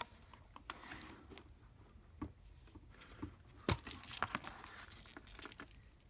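Faint unpacking noise: scattered light clicks and rustles of plastic vacuum attachments and a cardboard box being handled, with a few sharper knocks about two and three and a half seconds in.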